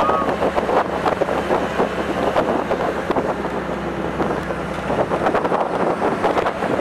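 Wind buffeting the microphone over a steady low hum, with scattered crackles and knocks.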